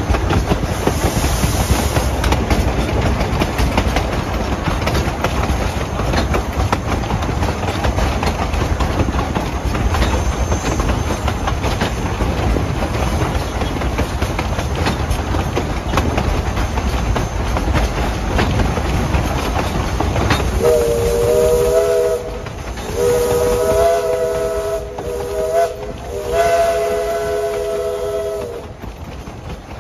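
Steady rolling rumble and clickety-clack of a train riding behind East Broad Top steam locomotive No. 16, a narrow-gauge Mikado. About two-thirds in, the locomotive's chime whistle sounds a chord in several long blasts with a short one near the end, a warning for a road crossing ahead.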